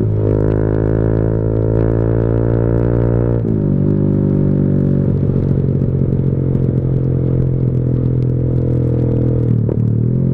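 Motorcycle's stock-bore engine running through a carbon-fibre Leo Vince GP Corsa Shorty exhaust run as an open pipe without its baffle, a loud, full, steady drone while riding. The revs dip briefly about three and a half seconds in and again near the end.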